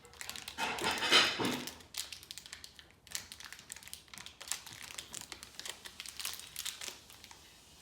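Plastic packaging crinkling and rustling as a small toy piece is unwrapped. The loudest rustle comes about a second in, followed by scattered small clicks and crinkles.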